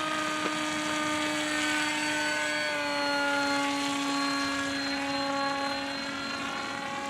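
68-inch Storm Chaser Maiden radio-controlled plane in flight at about half throttle: a steady motor-and-propeller drone whose pitch sinks slowly, fading a little near the end.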